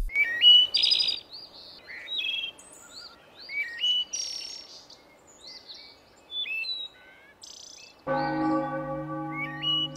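Birds chirping in short calls, many of them rising in pitch. About eight seconds in, a bell is struck once and rings on.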